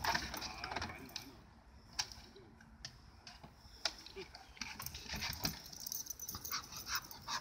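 A dog's paws tapping and scraping on the slats of a wooden agility A-frame: a few sharp knocks about a second apart, then a flurry of small clicks and scuffling as it comes off and runs.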